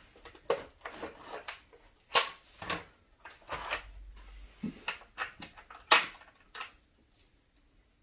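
Hands handling small objects: a string of sharp clicks and knocks with rustling in between, the sharpest about two seconds in and again near six seconds.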